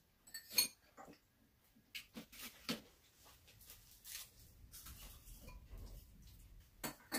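Eating at a table: metal chopsticks and spoons clicking and clinking against bowls now and then, the sharpest clink about half a second in, with quiet chewing and slurping between.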